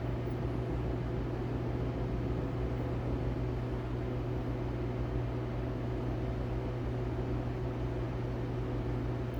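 Steady low electrical hum with a constant hiss, unchanging throughout, from machinery running in the background.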